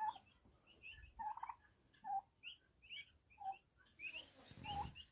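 Turkeys calling: a string of short high chirps with lower yelps about once a second. There is a brief low rumble near the end.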